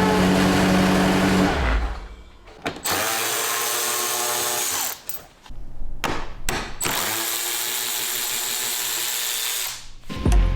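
Cordless power tool, such as a drill driver, run in two bursts of a few seconds each, its motor spinning up at the start of each burst, while fasteners come out during body-panel disassembly. It is preceded by a steady low hum that cuts off about a second and a half in.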